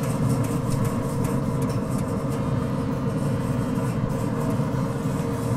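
Grill brush scraping back and forth across a pellet grill's cooking grate, in faint irregular strokes over a steady low rumble.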